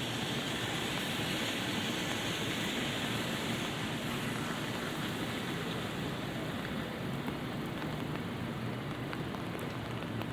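Light rain falling on an umbrella and wet pavement: a steady hiss with scattered small drop ticks. A brighter hiss fills the first few seconds and then eases off.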